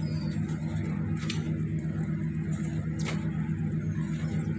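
Gas stove burner flame giving a steady low rumble as a chapati is toasted directly over it. Two brief clicks come about a second in and again about three seconds in.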